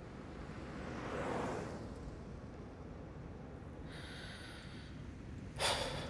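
Low steady rumble of a car's cabin, with a soft breath about a second in and a man's short, sharp sigh near the end.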